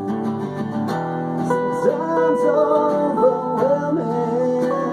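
A song with acoustic guitar, strummed and plucked, under sustained notes; a singer's voice comes in about two seconds in with the line "sometimes overwhelming."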